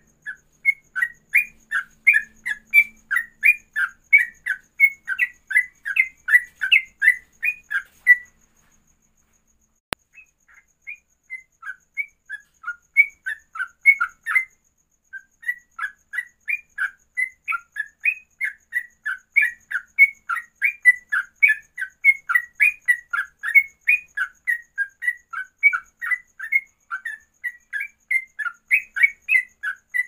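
Yellow-vented bulbul (trucuk) singing a fast run of short, clear, whistled notes, about three a second, in long bouts. The song pauses for a couple of seconds after about eight seconds and breaks off briefly in the middle. A single sharp click falls in the pause.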